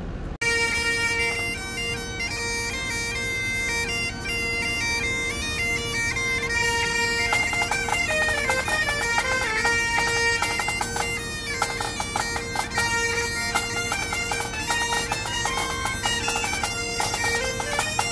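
Bagpipes playing a melody of quickly changing notes over one steady drone, starting abruptly about half a second in.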